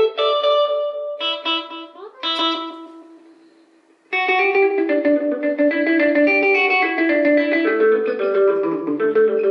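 Hollow-body electric guitar played through a repaired Electra EP-401 digital delay, picked notes trailed by delay repeats. About two seconds in, one phrase dies away almost to nothing; a new run of notes starts at about four seconds.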